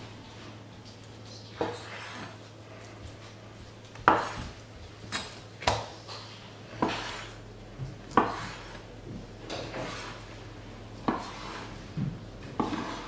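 Kitchen knife slicing raw chicken breast into thin strips, the blade knocking sharply on a wooden cutting board at uneven intervals, about a dozen times.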